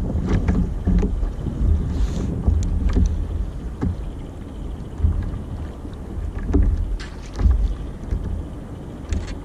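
Wind buffeting the microphone and water slapping against a kayak hull, a steady low rumble broken by scattered sharp clicks and knocks.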